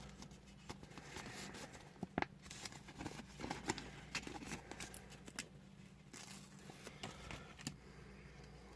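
Small plastic toy parts and a sticker sheet being handled: scattered light clicks and ticks with faint scratchy peeling.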